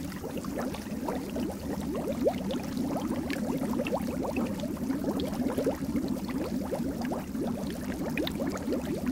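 Water bubbling and splashing: a dense, continuous run of small pops and gurgles.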